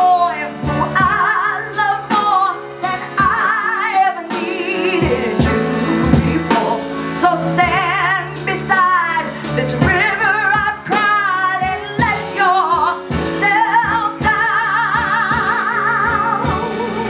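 A woman singing a slow song with a live band and drums, with long held notes with vibrato, the longest near the end.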